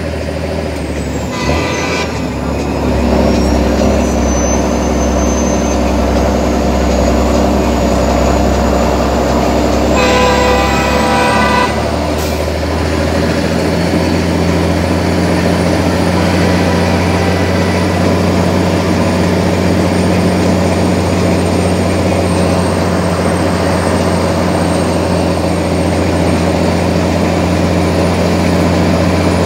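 Heavy truck's diesel engine running steadily while driving, heard from inside the cab of an International 9900i, its note changing about 11 seconds in. Two short horn toots sound about 2 seconds and 10 seconds in.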